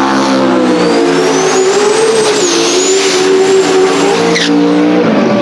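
Drag race cars doing burnouts: engines held at high revs with tyres spinning, and a thin high whine that climbs for about two seconds, dips, then holds. The engine note changes abruptly near the end as the sound cuts to another car.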